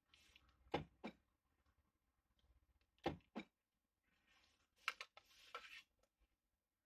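Three pairs of sharp clicks, the two clicks in each pair about a third of a second apart, as buttons on a plastic Renault card key are pressed and released. Soft rustling of the key being handled between the clicks.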